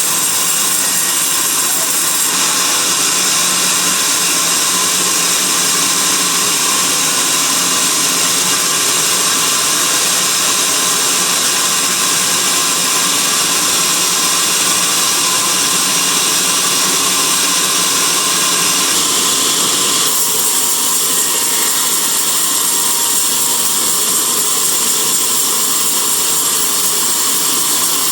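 Band sawmill running and cutting through a teak log with a steady, loud, hissing saw noise. The sound grows brighter about two seconds in and changes again about twenty seconds in.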